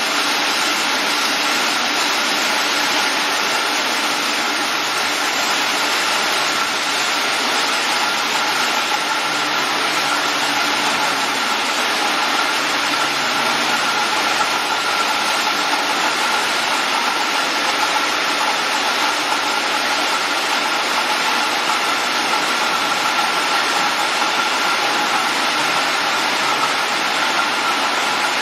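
Steady, unbroken din of a running three-piece food can production line, with a faint constant whine over the machinery noise.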